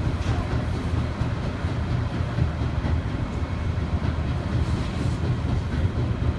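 Commuter train running on the Tobu Tojo Line, heard from inside the carriage: a steady low rumble of wheels on rail with faint ticks of the rail joints.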